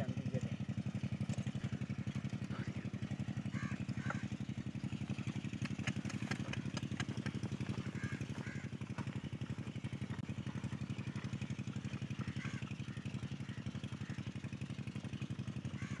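A small engine running steadily with a fast, even chugging beat.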